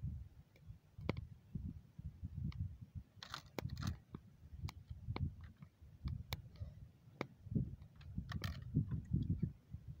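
Small fire of dry branches and twigs crackling, with scattered sharp snaps and pops, over a low, uneven rumble.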